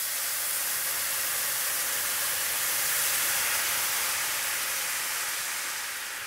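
Red wine poured into a hot steel wok of browned lamb fat and juices, hissing and sizzling steadily as it deglazes the pan and steams off, a little louder in the middle.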